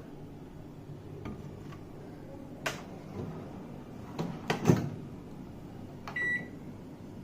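Microwave oven running with a steady low hum; a few sharp clicks and knocks come through the middle, the loudest just under five seconds in, and one short electronic beep sounds about six seconds in.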